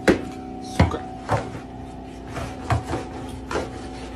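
Long mop handle knocking and scraping under a refrigerator and along a wooden floor: a string of sharp knocks, the loudest near the start and just before a second in, over a steady hum.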